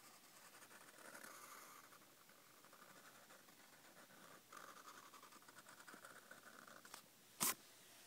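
Black marker drawing on lined notebook paper, a faint scratchy stroking as letter outlines are traced. A single sharp click about seven seconds in.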